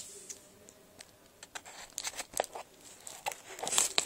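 Paper mailing envelope crinkling and rustling as it is handled, a scatter of short crackles that grows busier in the second half.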